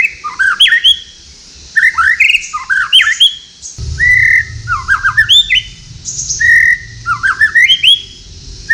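White-rumped shama singing: the same short phrase, repeated about every two seconds, four times. Each phrase opens on a held whistle and breaks into quick falling and rising notes.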